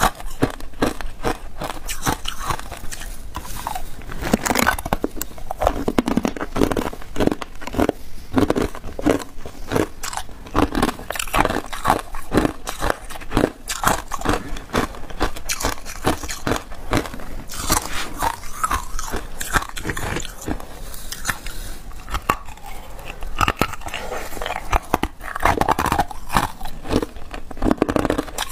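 Hard clear ice chunks being bitten and crunched between the teeth close to the microphone: dense, irregular cracks and crunches that keep going, several a second.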